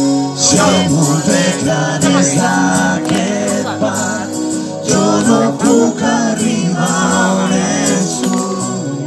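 Live acoustic guitar and voice: a singer over strummed acoustic guitar chords.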